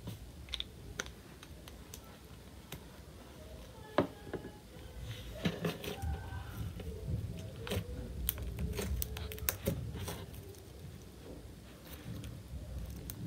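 Clear glue slime being kneaded and stretched by hand, giving off irregular sticky clicks and pops, thickest through the middle as it is pulled apart.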